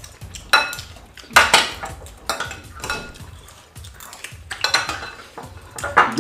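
Eating utensils clinking and scraping against dishes during fast eating: about six or seven sharp, irregular clatters.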